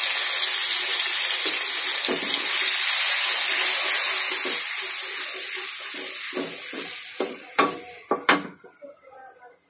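Chopped garlic sizzling in hot mustard oil in a metal kadai. The sizzle dies down after about five seconds, and near the end a spatula knocks and scrapes against the pan several times.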